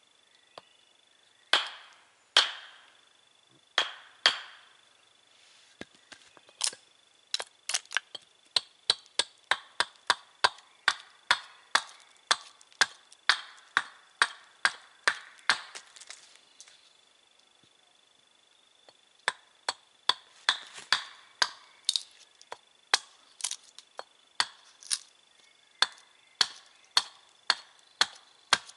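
A small axe working a wooden billet on a chopping block. First come a few heavy knocks of a wooden maul driven onto the axe head. Then comes a long run of quick, lighter axe chops, about two a second, with a short pause midway, as the billet's edges are trimmed square.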